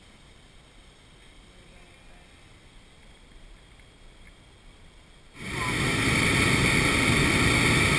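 Hot-air balloon's propane burner firing: after a few seconds of faint background, a sudden loud steady blast starts about five seconds in and keeps going.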